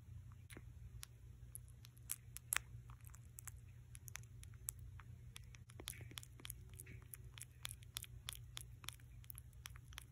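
A sleeping kitten's mouth making faint, irregular wet clicks and smacks, several a second, over a low steady hum.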